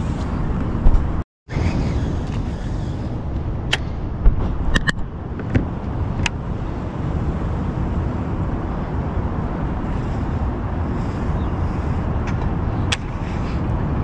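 Steady low outdoor rumble with a few short, sharp clicks scattered through it; the sound cuts out completely for a moment about a second in.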